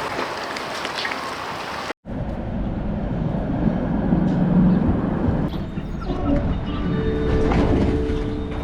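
Steady low rumble of a moving vehicle, broken by a brief gap about two seconds in, with a few steady humming tones coming in near the end.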